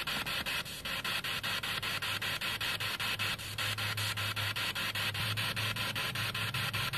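Ghost-hunting spirit box sweeping through radio stations: a steady hiss of static chopped several times a second. A low hum joins underneath about two and a half seconds in.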